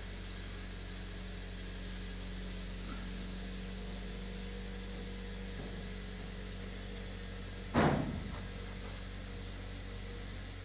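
A steady low hum runs throughout. About eight seconds in, one loud knock rings briefly and dies away.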